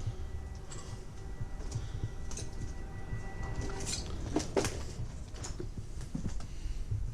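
Scattered light knocks and clicks over a low, constant handling rumble, with a sharper pair of knocks about four and a half seconds in and a faint thin steady tone through the first half.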